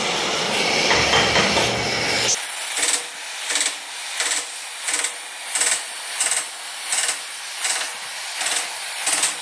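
Oxy-acetylene torch flame hissing. After about two seconds its low rumble drops away abruptly and a regular rasping sets in over the hiss, about three strokes every two seconds.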